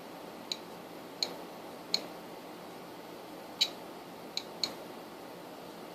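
Relays inside a Korad KA3005P bench power supply clicking as they switch, six sharp clicks at irregular intervals.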